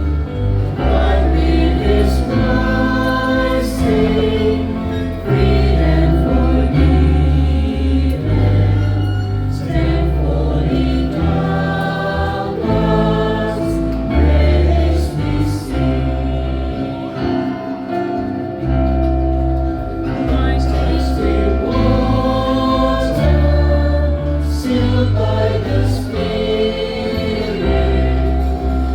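Church choir singing a hymn over instrumental accompaniment, with a bass line that steps to a new note every second or two.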